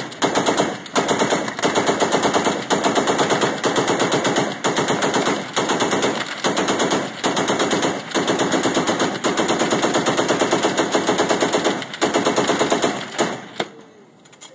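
Machine gun firing long bursts of rapid automatic fire with short pauses between bursts. The firing stops about a second before the end.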